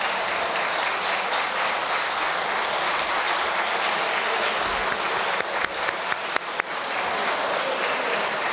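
Applause from many people in a parliamentary chamber: an even clatter of clapping, with a few sharper, louder claps about five to seven seconds in.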